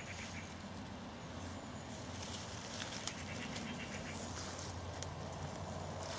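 Quiet lakeside outdoor ambience: a steady low rumble with scattered faint clicks and one sharper click about three seconds in, and faint animal sounds in the background.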